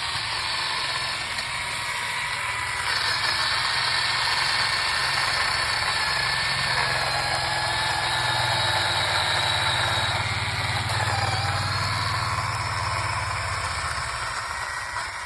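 Engine running steadily.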